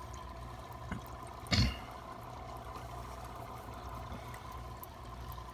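Aquarium water trickling steadily under a low hum and a faint steady whine, with one short louder sound about a second and a half in.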